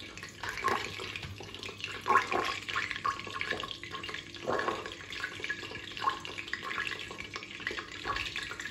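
Water running from a kitchen tap and splashing unevenly in a sink.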